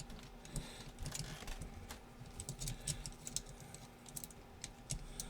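Irregular light clicks and taps of small steel parts as a spring is worked into place in an M1895 Nagant revolver's frame.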